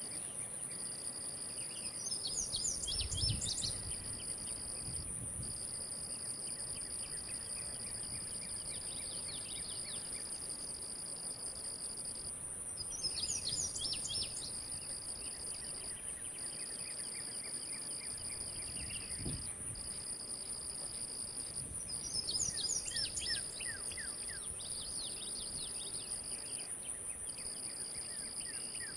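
Insects trilling steadily: one high continuous trill, and a lower one that cuts out briefly every few seconds. A bird's call of quick descending notes comes three times, with a couple of soft low thumps.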